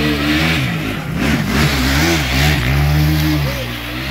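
Sport ATV engine revving up and falling back about three times as the throttle is worked.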